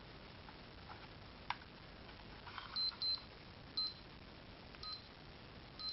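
LCD power supply tester plugged into a computer power supply, giving short high beeps: about five, irregularly spaced, starting near the middle, after a faint click.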